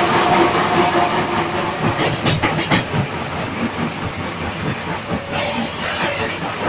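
Automatic concrete block (batako) making machine running: a steady mechanical rattle and hiss, with a cluster of sharp clanks about two to three seconds in and a few more near the end.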